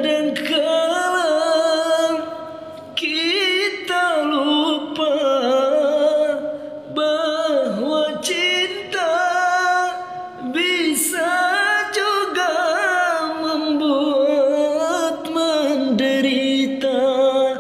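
A young man singing unaccompanied in a dangdut style: long held vowels with wavering, ornamented runs that bend up and down in pitch, in several phrases with short breath pauses between them.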